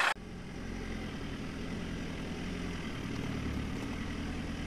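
Off-road 4x4 truck engine idling: a low, steady hum.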